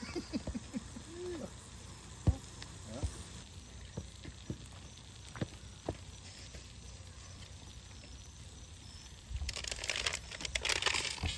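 Scattered light clicks and knocks, then a crinkling rustle for about two seconds near the end.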